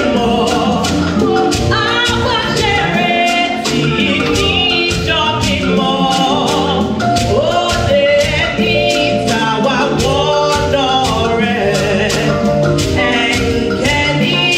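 Church choir singing a gospel song in several voices, backed by drums keeping a steady beat.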